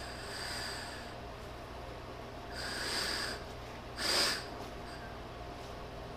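A person breathing out heavily through the nose, three breaths a couple of seconds apart; the last, about four seconds in, is the sharpest and loudest.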